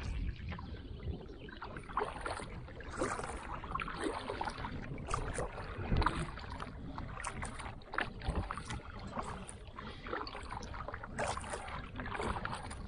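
Kayak paddle strokes splashing into choppy water, about one a second, with water washing along the hull as the kayak is paddled hard.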